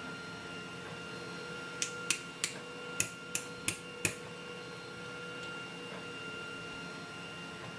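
Seven light, sharp metallic clicks in about two seconds, small lock pins and parts being picked out and set down with pinning tweezers as the lock is gutted, then only a steady background hum.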